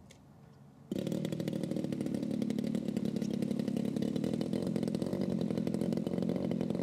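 DLE-30 single-cylinder two-stroke petrol engine of a large RC plane idling steadily. The sound comes in abruptly about a second in and holds an even pitch.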